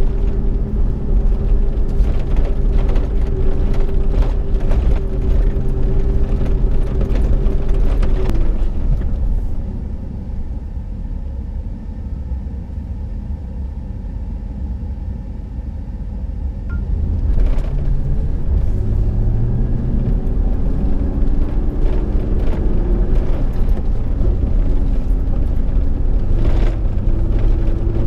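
Dodge Ram Power Wagon's Hemi V8 heard from inside the cab while driving a dirt road, with road rumble underneath. About eight seconds in, the engine note drops away as the throttle is lifted, and it runs quieter for several seconds. From about seventeen seconds its pitch climbs as it accelerates again, then it settles into a steady pull.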